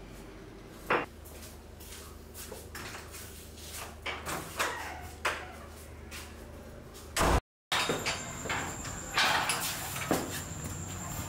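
A wooden door being handled: the handle and lock click, then the door bangs shut with a loud knock about seven seconds in. After a short dead silence come footsteps with scuffs and small knocks.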